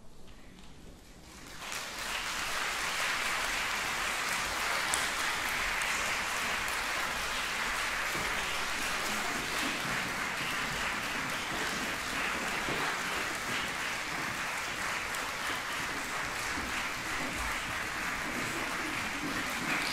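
Concert audience applauding to welcome a choir onto the stage; the clapping rises about a second and a half in and then holds steady.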